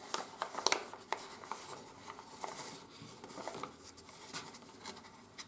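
A sheet of 80 g/m² office paper being bent and pressed into shape by hands: soft rustling and crinkling with a few sharper crackles of creasing paper, most of them in the first second.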